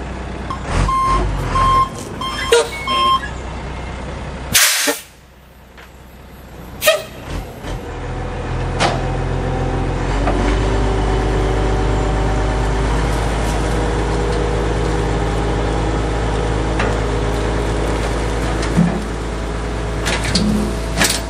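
Diesel dump truck: a few short beeps, then a sharp burst of air hiss about four and a half seconds in. From about ten seconds the engine holds a steady, raised speed while the hydraulic hoist lifts the bed, and near the end the load of dirt starts sliding out of the tailgate.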